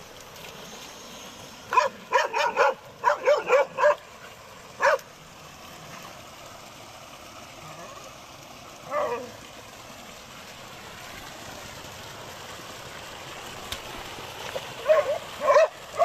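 An animal's short, pitched yelping calls over a steady hiss. A quick run of about eight comes about two seconds in, two single calls follow in the middle, and another short run comes near the end.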